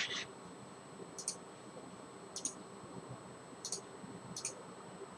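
Faint computer mouse button clicks, four short press-and-release clicks spaced about a second apart.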